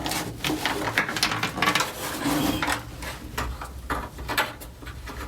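Small loose metal parts, which may belong to a VW Beetle's handbrake, clicking and clinking irregularly as they are handled and tried for fit.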